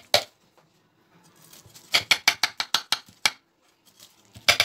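Metal spatula cutting through a baked pie and scraping against the bottom of a ceramic baking dish: one sharp scrape at the start, a quick run of about ten scrapes about two seconds in, and two more near the end.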